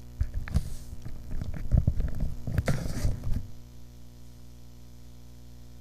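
Steady electrical hum in the recording, with about three seconds of irregular low rumbling and crackling noises near the start that then stop, leaving the hum alone.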